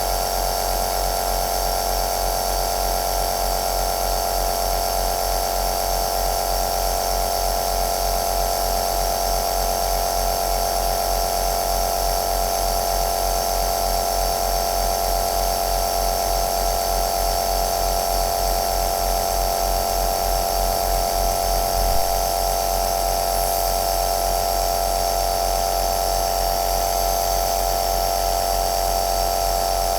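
Compressor nebulizer (aerosol machine) running steadily: an even motor hum with a strong steady whine and a hiss of air. There is one brief knock about two-thirds of the way through.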